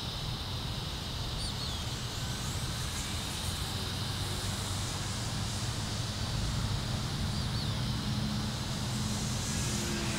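Electric motor and propeller of an E-flite Air Tractor 1.5 m RC model plane, powered by a 3S LiPo, running in flight. The drone is steady and grows a little louder past the middle.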